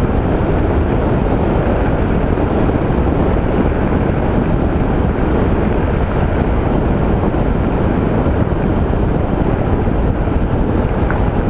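Steady wind rush over a helmet-mounted microphone on a motorcycle riding at a constant touring speed. The microphone has lost its windsock and has only a makeshift cover, so the wind covers the engine and road noise of the Honda ST1300.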